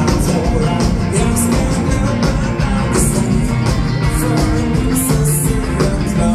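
Live dance band playing an upbeat rock'n'roll number through a PA: electric guitars, bass and drums with a steady beat.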